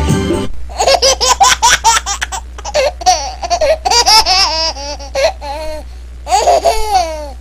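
A baby laughing hard in quick runs of high giggles, ending in a longer falling squeal near the end. Music cuts off about half a second in, just before the laughter starts.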